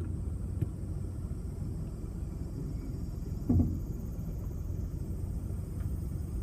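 Honda N-BOX with a steady low running rumble and one short, low-pitched knock about halfway through. The knock is the abnormal noise the car makes on a steep slope.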